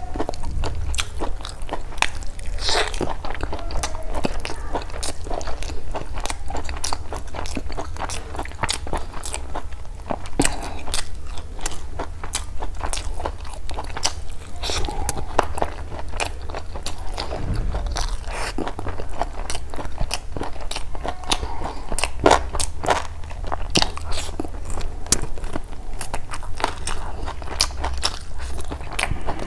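Close-miked eating: wet chewing and biting as meat is pulled off a curried chicken leg and rice is eaten by hand, with frequent sharp crunches and mouth clicks.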